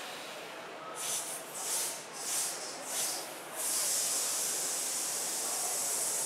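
Breath-control exercise hissed out as "sss" through the teeth. About a second in come four short hisses, each roughly two-thirds of a second apart, then one long held hiss.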